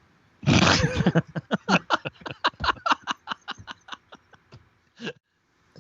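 Laughter: a loud burst, then a long run of quick snickers growing fainter.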